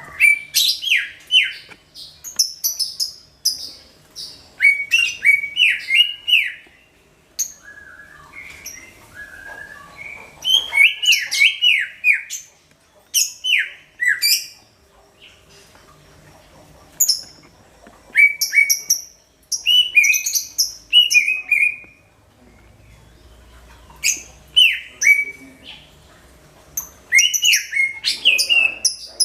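Cucak ijo (green leafbird) singing loudly in phrases of quick, sharp, falling notes, broken by pauses of a second or two.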